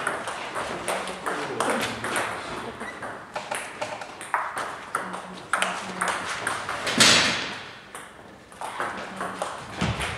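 Table tennis ball clicking off the rackets and the table during a doubles rally, in quick, irregular hits, with a louder short burst of noise about seven seconds in.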